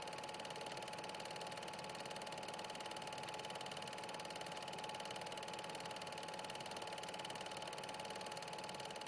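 A small machine running steadily, with a constant whine over an even mechanical whirr.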